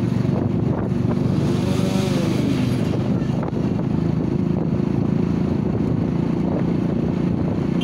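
Motorcycle engine running steadily while the bike is ridden along the road, with wind on the microphone. About two seconds in, a brief tone rises and falls in pitch over the drone.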